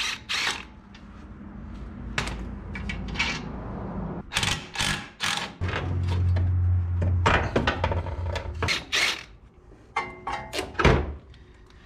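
Clanks and knocks of hand tools and metal parts as a car's strut is unbolted, in short separate strokes throughout, with a low steady hum for a second or two in the middle.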